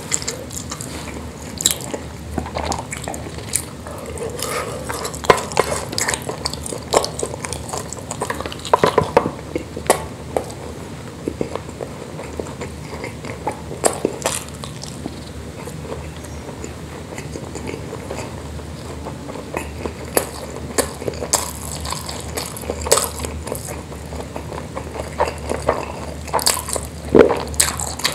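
Close-up eating sounds: a person biting and chewing spicy meatballs in sauce with rice, with many irregular wet mouth clicks and smacks.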